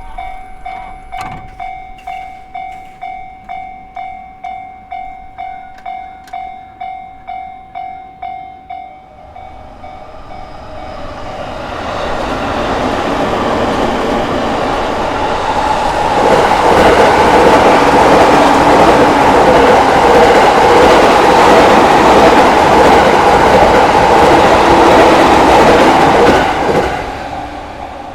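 Japanese level-crossing warning bell ringing at a steady beat of about two strikes a second. It fades out about nine seconds in as a JR Tokaido Line train approaches. The train passes loudly with wheels clattering on the rails, then drops away sharply near the end.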